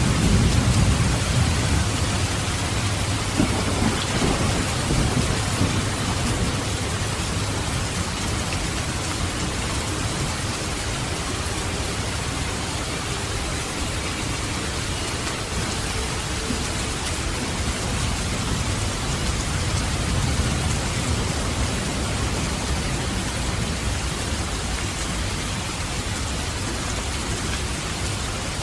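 Thunderstorm: steady rain hissing throughout, with a long roll of thunder rumbling low and loud over the first several seconds, and a fainter rumble swelling again about twenty seconds in.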